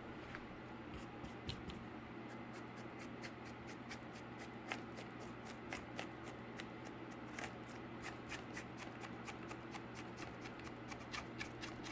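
A paintbrush dry-brushing paint onto a cardboard surface: rapid, irregular light scratchy ticks from the bristles, growing denser after the first couple of seconds.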